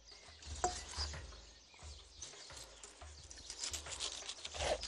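Kitchen knife cutting pineapple on a cutting board: scattered light taps and clicks of the blade against the board, coming thicker and louder near the end, over a low background rumble.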